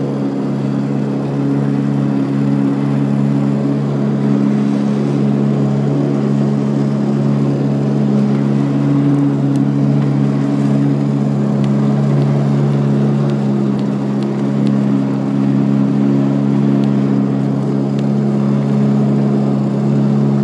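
Outboard motor of a small aluminium fishing boat running steadily, a constant low hum with no change in speed.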